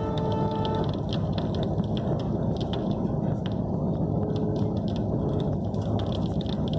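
Steady rumble and clatter of a moving train, heard from inside the carriage. A steady tone stops just under a second in.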